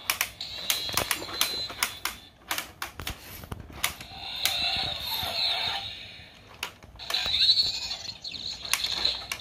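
Hard plastic parts of a toy aircraft playset clicking and clattering as they are moved and snapped by hand, a quick irregular run of clicks. About four seconds in, and again near the end, a longer, higher continuous sound joins in.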